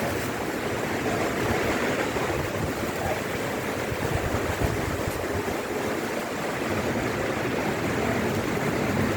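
Strong, gusty wind from the tail of a cyclone blowing steadily, a continuous rushing noise with uneven low rumbles of wind buffeting the microphone.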